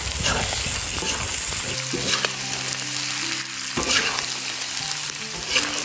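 Sliced pork, fermented chilli paste and chopped green and red peppers sizzling in hot oil in a pan while being stirred, with scattered spatula scrapes and knocks.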